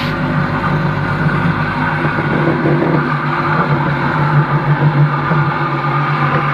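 Electric water-pump motor belt-driving a car alternator, running steadily with a constant hum and belt and bearing noise.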